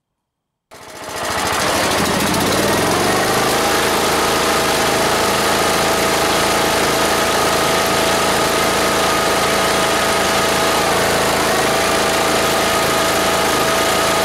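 Lawn tractor running under power, cutting in abruptly about half a second in and rising in pitch over the next two seconds. It then holds a steady pitch while it drives both rear wheels round together through the locked transaxle differential.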